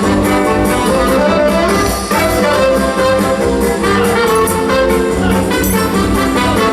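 Background music with brass instruments over a steady beat.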